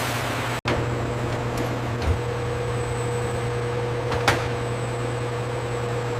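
Steady machinery hum with hiss and a faint steady whine, broken by a few sharp clicks; the sound drops out for an instant under a second in.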